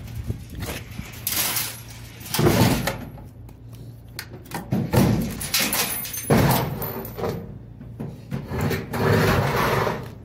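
A metal clothes dryer being tipped and shaken, its sheet-metal cabinet clunking and loose coins rattling inside it, in a series of irregular clattering bursts.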